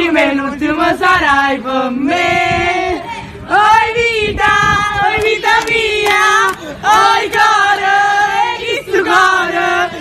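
A woman singing a pop song live, holding long notes, with a crowd's voices possibly joining in.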